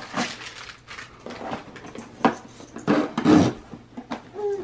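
Cardboard toy box being handled and opened and a wooden toy mop slid out of it: a string of short, irregular scrapes and rustles.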